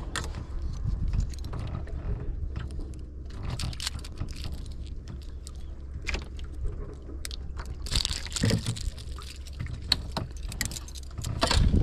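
Clicks and small metallic rattles of a fish lip-grip tool and a lure's treble hooks being handled while a small emperor fish is unhooked, over a steady low rumble.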